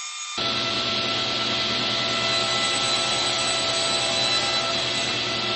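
A steady, loud electric workshop machine running with a whine, starting abruptly just after the start.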